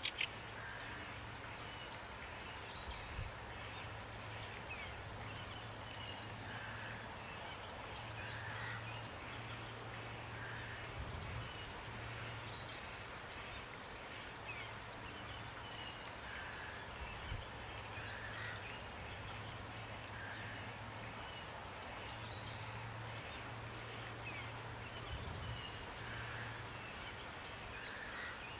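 Steady rain with small songbirds chirping and trilling over it in short repeated phrases. A faint low hum comes and goes underneath.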